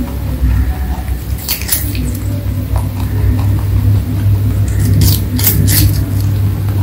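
Rabbit biting and chewing a crisp slice of fruit: sharp crunches about a second and a half in and a cluster of crunches around five to six seconds in, over a steady low hum.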